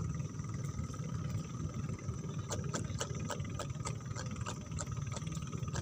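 A steady low rumble, with a run of light clicks about halfway through as a lure's hooks are worked free of a small trevally's mouth.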